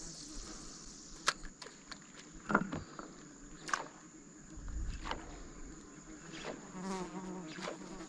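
Insects in the riverside forest give a steady high-pitched drone. Scattered sharp clicks and taps sound over it.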